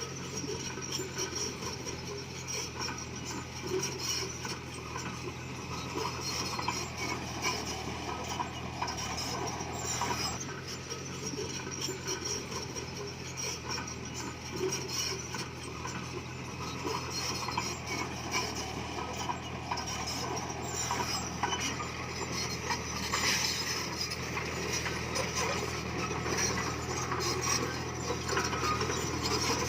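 Komatsu bulldozer's diesel engine running steadily, under a continuous clanking rattle of its steel tracks and the stone it pushes.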